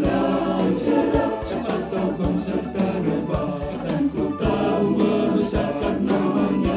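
A mixed church choir singing an Indonesian hymn, backed by instruments, with a regular low percussive beat under the voices.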